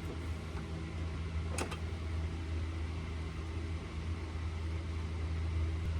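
A steady low machine hum, with a single short click about one and a half seconds in.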